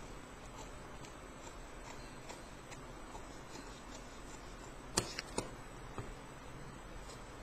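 Tailoring scissors snipping through a paper pattern sheet: faint scattered ticks, then a few sharp snips about five seconds in.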